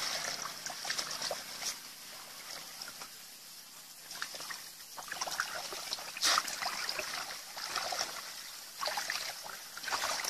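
Shallow muddy water splashing and sloshing as a bamboo plunge-basket fish trap is pushed down into it and people wade through it, in irregular bursts with a louder splash about six seconds in and more near the end.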